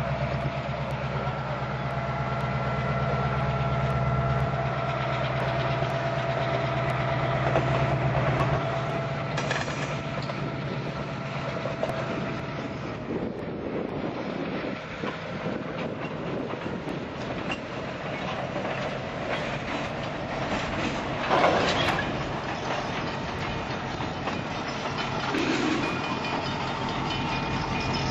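Freight train rolling past at close range, its car wheels clicking over the rail joints amid a steady rumble, with a diesel locomotive's engine going by partway through. There is a sharp louder noise about two-thirds of the way in.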